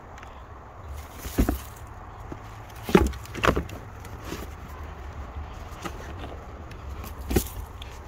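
A plastic basket of potatoes being handled: four short knocks and bumps, the loudest about three seconds in, over a steady low rumble.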